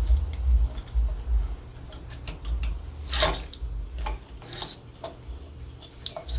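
Light metallic clicks and clinks of engine parts and hand tools being handled during an ATV top-end rebuild, with a brief scrape about three seconds in over a low rumble.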